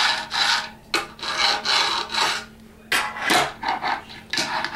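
A run of short scraping, rubbing strokes against wood, several in a row with brief gaps, quieter for a moment about halfway through.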